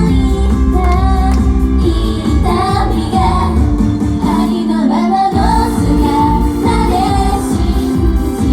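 A pop song sung by a female voice over full backing music. The bass drops out about four seconds in and comes back strongly a little over a second later.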